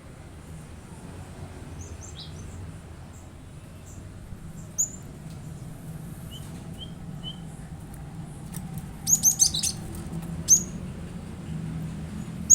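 Cinereous tit (gelatik batu) calling: scattered short, high chirps, a quick run of chirps about nine seconds in, and a loud chirp near the end, over a steady low hum.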